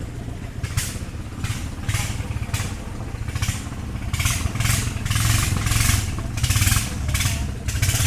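A small river boat's motor running steadily with a low hum. A rhythmic hiss recurs about twice a second over it, louder in the second half.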